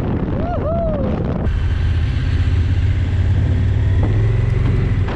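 Honda Africa Twin motorcycle engine running at a steady pace under way, with a hiss of wind and road noise; it cuts in abruptly about a second and a half in. Before that come a couple of short tones that slide up and down.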